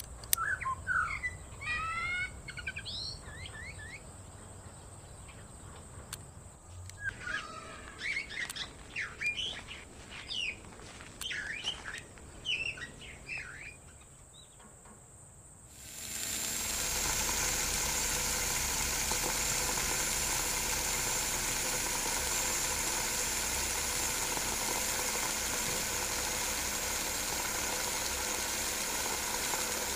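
Small birds chirping in scattered spells. About halfway through, a steady hiss starts suddenly and holds, with a faint whine in it: the small DC motor driving the belt-driven toy water pump.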